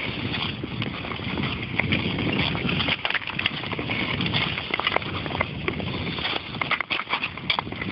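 Nordic long-blade skates gliding and scraping over natural lake ice, with wind buffeting the microphone. Scattered sharp clicks and knocks run through it, thicker in the second half.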